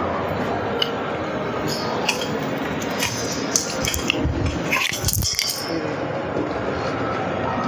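Light clinks of a spoon and steel meal tray over a steady hiss of room noise in a large dining hall.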